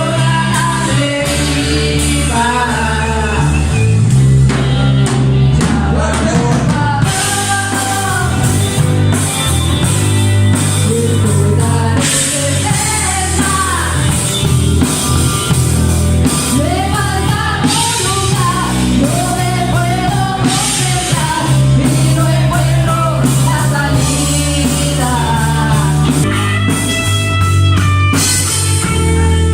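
Rock song with a lead vocal singing over electric guitar, bass and drum kit; a guitar riff comes to the fore near the end.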